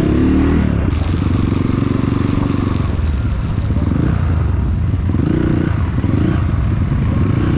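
Motorcycle engine running while riding, its pitch rising and falling several times as the throttle is opened and eased off.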